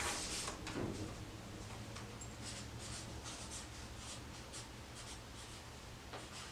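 Drawing on paper with a pen: a run of faint, quick scratching strokes.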